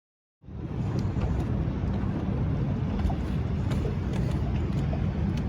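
Boat's motor running steadily, a low rumble with a little water and wind noise, cutting in abruptly about half a second in.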